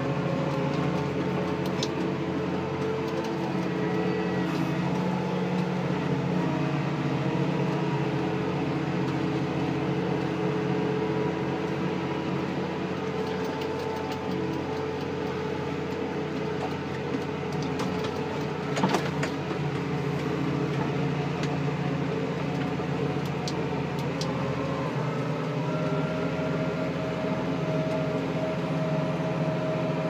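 New Holland 6090 tractor's diesel engine running steadily at about 1500 rpm under ploughing load, heard from inside the cab. A single sharp click comes about two-thirds of the way through.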